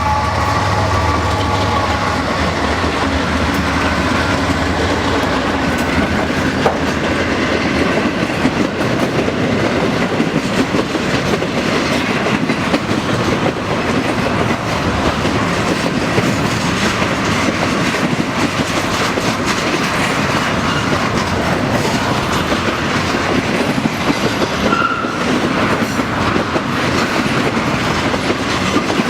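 Norfolk Southern intermodal train passing close by: a steady, loud rumble of steel wheels on rail with rapid clickety-clack over the joints. The last of a horn note fades in the first second.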